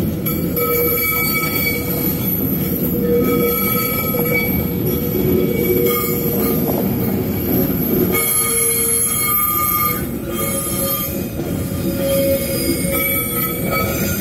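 Freight train of enclosed double-deck car-transporter wagons rolling past with a steady rumble, its wheels squealing on the rails in several high tones that come and go.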